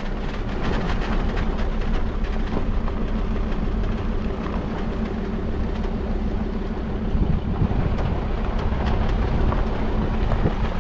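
Four-wheel-drive vehicle driving along a dirt track: steady engine hum with tyre and road noise.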